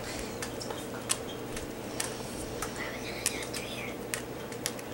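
Light, irregular clicks and taps of a cooking utensil against a nonstick skillet as noodles are stirred, over a low steady hum.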